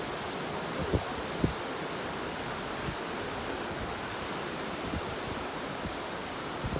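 Steady wash of ocean surf, with wind gusting against the microphone in a couple of brief low thumps about a second in.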